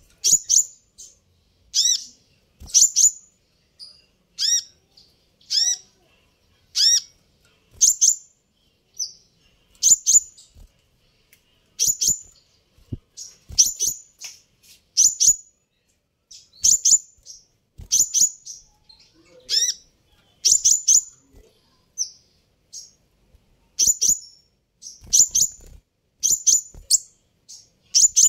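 Van Hasselt's sunbird (kolibri ninja) calling: short, high, sharp chips repeated every second or so, often in quick pairs or threes. The first few calls each carry a quick falling slur.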